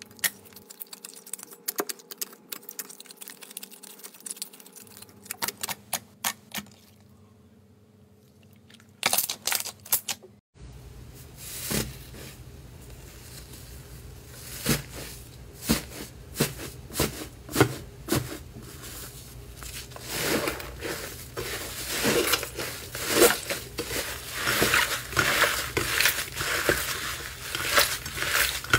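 Hands squishing slime. First a clear glitter slime gives scattered sharp clicks and pops. Then, from about ten seconds in, a crumbly sequin-flecked 'tofu' slime is torn and crushed, with dense crackling that grows busier and louder in the second half.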